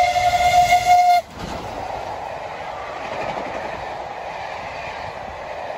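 Steam whistle of 35028 Clan Line, a Merchant Navy class steam locomotive, held steadily and cut off abruptly about a second in. It is followed by the steady rush of the train's coaches running past.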